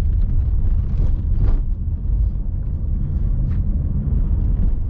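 Car on the move, heard from inside the cabin: a steady low rumble of engine and tyre noise.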